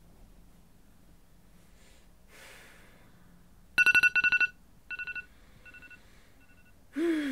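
Mobile phone alarm going off: quick bursts of rapid two-tone electronic beeps starting about halfway through, the first burst loud and each following one fainter. Near the end comes a brief noisy sound with a falling pitch.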